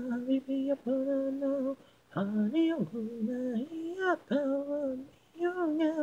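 Isolated lead vocal with no instruments behind it, singing held, gliding melodic phrases. The singing breaks off briefly about two seconds in and again about five seconds in.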